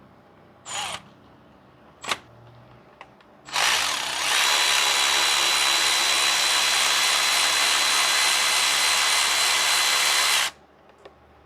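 Power tool motor running steadily for about seven seconds with a constant high whine, then stopping abruptly, as it spins out a starter mounting bolt. Two short knocks come before it.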